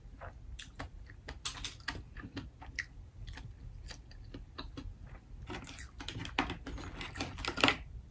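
Steamed black mussel shells clicking and clattering against each other as they are picked from the pile, mixed with close-up mouth sounds of eating the mussels. The clicks come thickest and loudest over the last two seconds or so.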